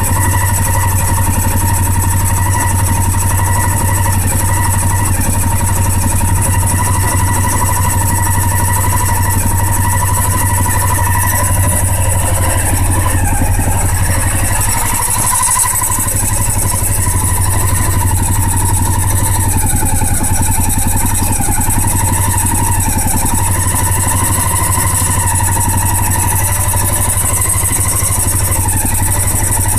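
Honda XRV750 Africa Twin V-twin engine idling steadily, with a brief dip about halfway through.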